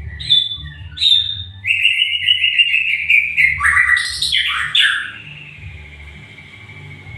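White-rumped shama (Sumatran murai batu) singing: loud, varied whistled phrases, a fast rattling trill and falling notes over the first five seconds, then softer notes.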